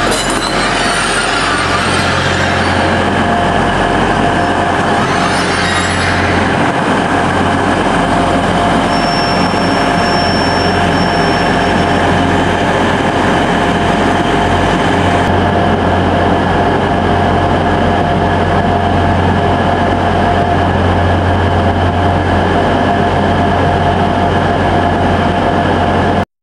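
Diesel multiple-unit trains, among them a First Hull Trains Class 180, running at the station platforms with a steady engine drone and a constant hum. About 15 seconds in the sound changes abruptly to a Class 180 standing at the buffer stops with its engines idling steadily.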